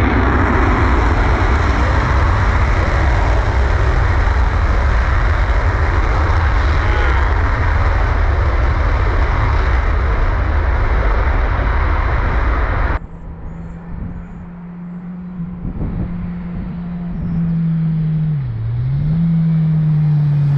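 Twin-engine F-18 fighter jet taking off: a loud, steady roar with a deep rumble for about thirteen seconds. It then cuts off suddenly, and a quieter steady engine drone follows, its pitch dipping once and recovering near the end.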